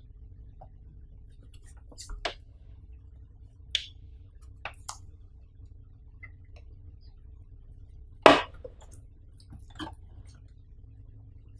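Hands handling the plastic casing of a Changhong 29-inch LED TV: scattered light taps and clicks, with one louder knock about eight seconds in, over a faint low hum.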